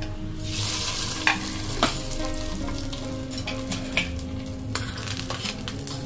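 Hot tadka of mustard oil and ghee with fried onions sizzling as it is poured onto khichdi in a pressure cooker; the hiss is loudest at first and fades over a second or two. A metal spoon clinks and scrapes against the small tadka pan a few times.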